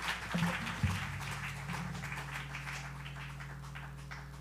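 Audience applauding after a song, the clapping thinning and fading toward the end, over a steady low electrical hum from the sound system. A couple of low thumps come about half a second and a second in.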